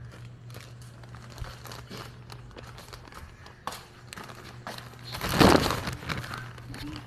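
Plastic bag crinkling in a hand as it moves, with scattered small clicks and a louder rustle about five seconds in, over a steady low hum.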